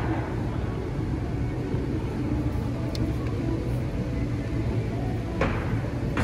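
Ford 5.0 Coyote V8 idling steadily at operating temperature, with a sharp plastic click near the end as the vacuum check valve line is unclipped.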